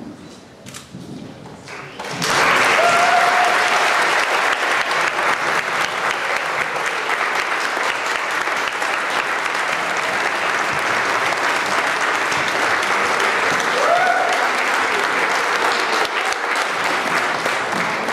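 Wedding guests applauding, starting abruptly about two seconds in and holding steady, with two short cheers from voices rising above the clapping.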